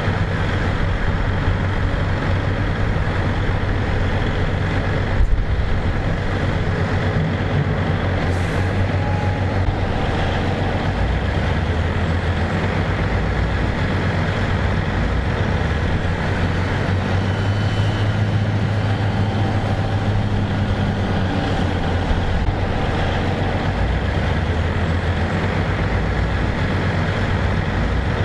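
Heavy diesel machinery running steadily with a constant low engine drone, as a grab loader unloads logs from a timber lorry. One brief knock about five seconds in.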